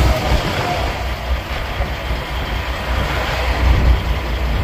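Semi truck's diesel engine rumbling, heard from inside the cab, a deep steady drone that swells again about halfway through.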